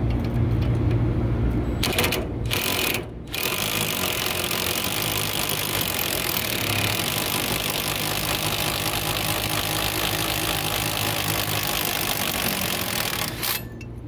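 Impact wrench hammering steadily on a gear puller's forcing screw, pulling the blower pulley off its shaft. It comes in two short bursts about two seconds in, then runs for about ten seconds and cuts off abruptly near the end.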